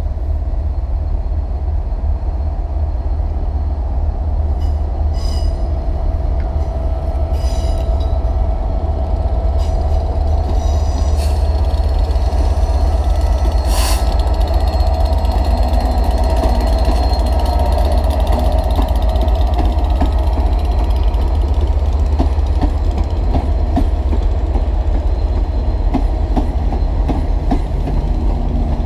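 Class 67 diesel locomotive with its V12 two-stroke engine running as it hauls a rake of passenger coaches slowly past, a steady low rumble throughout. Several short high-pitched wheel squeals come between about five and fourteen seconds in. The coaches' wheels click over the rail joints near the end.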